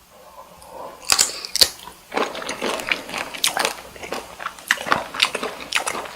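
Close-miked eating of cocktail shrimp: two sharp bites about a second in, then chewing with many small irregular clicks and crackles.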